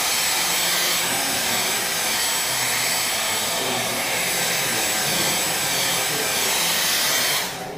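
Hair dryer blowing a steady rush of air onto wet watercolour paper to dry the paint, switching off near the end.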